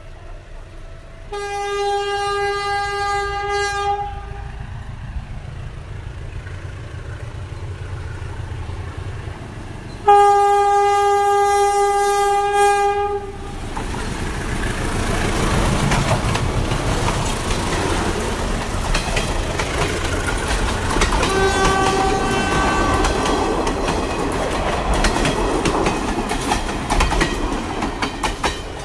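Diesel locomotive horn sounding three long blasts: one about a second in, a louder one about ten seconds in, and a fainter one after the engine has passed. From about fourteen seconds in, the locomotive and its passenger coaches pass close by with a heavy rumble and wheels clacking over the rail joints.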